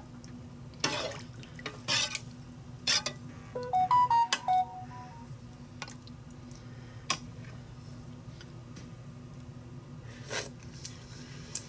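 A spoon swished through hot barbecue sauce in a slow cooker crock, tapping and clinking against the side now and then. About four seconds in comes a brief run of short high-pitched notes.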